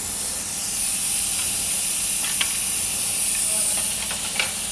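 Steady high hiss of shop background noise, with a few light metallic clicks and taps about two seconds in and again near the end, from hand tools working on engine parts as a bearing cap is worked loose.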